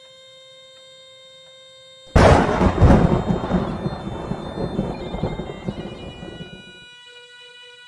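A sudden loud thunderclap about two seconds in, rumbling and fading away over about four seconds. Soft background music with long held notes plays under it.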